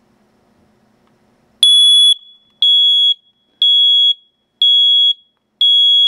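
First Alert GC01CN explosive gas and carbon monoxide alarm sounding in its push-button self-test. After about a second and a half of quiet, a really loud, high-pitched beep starts and repeats about once a second: five half-second beeps. The sounder is partly covered by a hand.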